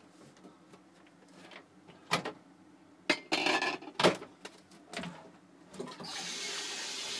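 Kitchenware being handled: a few sharp knocks and clatters and a short rustle. About six seconds in, a kitchen tap is turned on and water runs steadily into the stainless steel sink.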